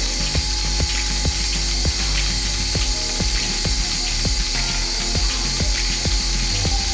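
Milking machine running on a cow: the pulsator clicks steadily about twice a second over a steady low hum.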